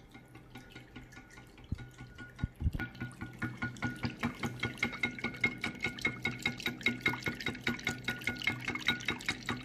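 Red silicone balloon whisk beating whipping cream by hand in a glass baking dish: a quick, even swishing and tapping at about four to five strokes a second. It grows louder about three seconds in, after a few dull knocks. The cream is just beginning to thicken.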